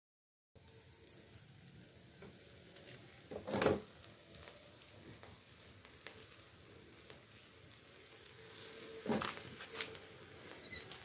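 Molten aluminum poured into a termite colony, sizzling and hissing as it fills the tunnels, with two louder bursts, one about three and a half seconds in and one about nine seconds in. The sound starts after a moment of silence.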